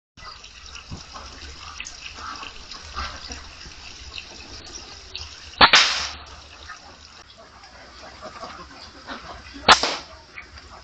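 Two air rifle shots about four seconds apart, each a sharp crack with a short tail, over steady background noise.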